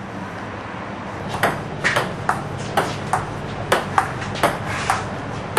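Table tennis rally: a ping-pong ball clicking off the paddles and the table, about two to three hits a second, starting a little over a second in.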